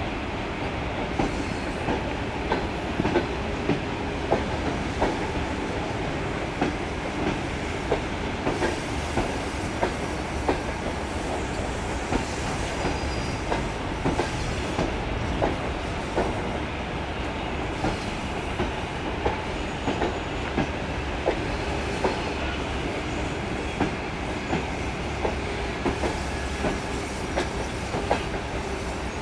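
Electric suburban train rolling out of the station, its wheels clicking over the rail joints about once or twice a second over a steady rumble.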